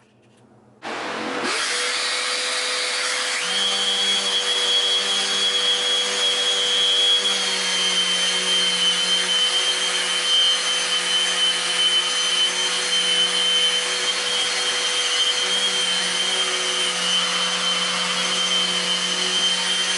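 Electric power sander switched on about a second in and running steadily while sanding a wooden workpiece, with a steady whine joining a couple of seconds later.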